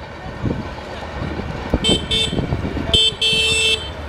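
Diesel locomotive horn sounding four blasts about two seconds in: two short, another short, then a longer one. Trains rumble steadily underneath.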